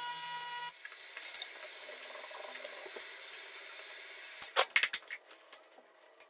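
AC TIG welding arc on aluminum buzzing steadily, cutting off under a second in. About four and a half seconds in comes a quick run of loud scrapes from a wire brush scrubbing the weld.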